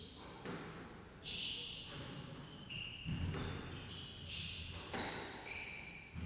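A squash rally: the rubber ball is struck by rackets and smacks off the court walls in sharp knocks, every half second to a second. Short high squeaks of court shoes on the wooden floor come between the hits.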